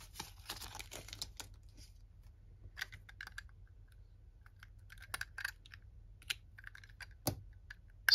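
Hands handling small plastic toy parts: light clicks and taps, with a papery rustle during the first second or so and a sharper knock near the end.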